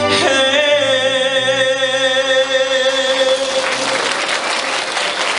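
A male singer holds the song's final note with vibrato over backing music, the note fading out about three and a half seconds in. Audience applause rises under it and takes over by the end.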